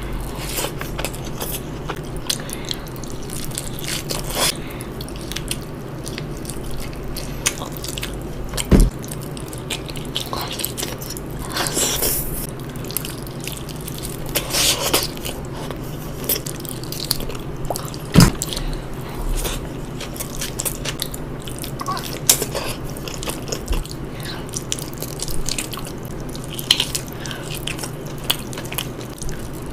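Close-miked mukbang eating: wet chewing, smacking and biting with many small clicks, and two sharp louder bites about nine and eighteen seconds in, over a steady low hum.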